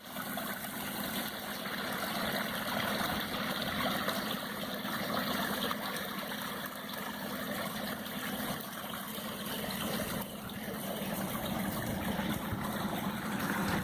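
Small wet-weather creek waterfall, swollen by heavy rain: water splashing and rushing in a steady, even flow.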